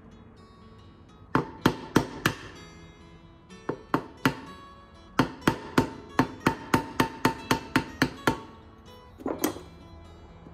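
Cordless impact driver hammering in several runs of sharp metallic clacks, the longest about a dozen strikes at three to four a second, breaking loose screws on a gummed-up carburetor. Background guitar music plays underneath.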